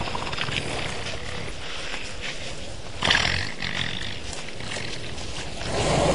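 African elephant trumpeting: a sudden loud, high blast about halfway through that fades within half a second, then a lower, louder call swelling near the end.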